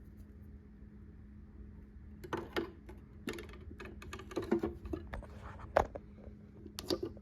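Steel pliers clicking and clattering as they are picked up and handled in a tool cart drawer: a run of irregular sharp clicks starting about two seconds in, over a faint steady hum.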